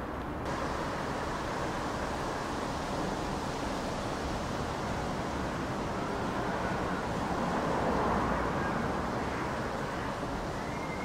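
Steady outdoor background noise of traffic and wind, swelling for a couple of seconds about eight seconds in.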